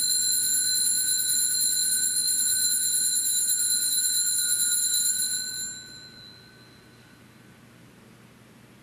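Altar bells rung continuously for the elevation of the chalice at the consecration, a bright jingling ring that stops about five and a half seconds in and dies away over the next second or so, leaving faint room tone.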